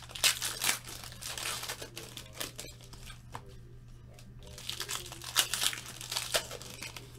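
Foil wrappers of Certified football card packs being torn open and crinkled by hand, with cards slid out, in irregular crackling bursts that are loudest just after the start and again around five to six seconds in.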